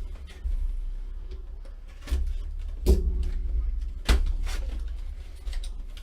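Handling and opening of a cardboard trading-card box: a few sharp knocks with rustling between them, over a steady low hum.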